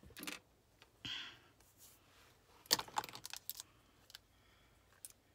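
Long artificial fingernails clicking and tapping against a plastic eyeliner pencil and a small black compact as they are handled: a loose run of light clicks and brief rustles, densest about halfway through.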